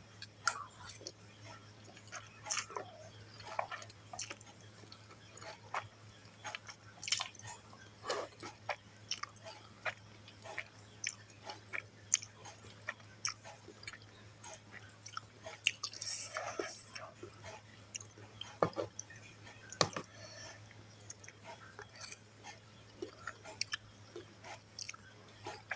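Close-miked eating sounds of someone chewing mie goreng fried instant noodles: irregular wet smacks and clicks of the mouth and teeth, coming every fraction of a second to a second or so.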